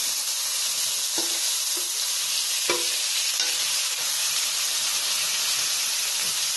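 Small tengra catfish, rubbed with salt and turmeric, sizzling steadily in hot oil in a frying pan as they fry, with a few sharp clicks.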